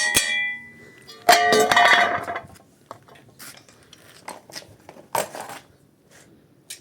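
A ringing metallic clang about a second in, followed by several fainter, sharper clinks and taps of metal.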